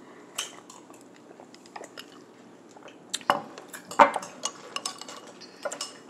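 Metal spoon clinking against a ceramic bowl of fruit and ice: scattered light clicks, with two louder clinks a little after three and four seconds in.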